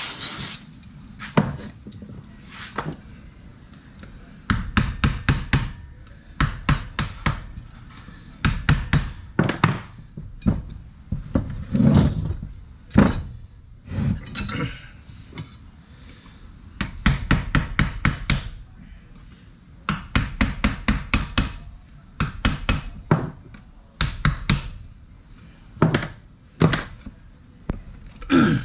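Hand hammer tapping in quick runs of several blows, each run lasting about a second, with short pauses between them, as parts of a Hilti TE 1000 demolition hammer are knocked loose during disassembly.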